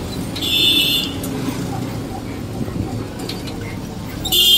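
Low road rumble and body rattle from a moving auto-rickshaw, with two short high-pitched rattling squeals, one about half a second in and one near the end.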